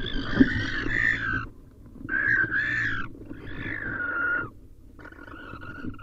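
Barn owls screeching inside a nest box during a fight with an intruding owl: four long, harsh screeches about a second or more each, with short gaps between. A sharp knock from the scuffle sounds less than half a second in.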